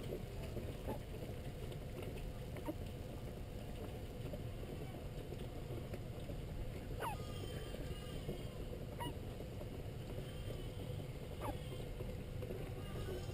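Repeated hiccups: about five short, sudden gulps a couple of seconds apart at uneven intervals, each with a quick rise in pitch, over a steady low rumble.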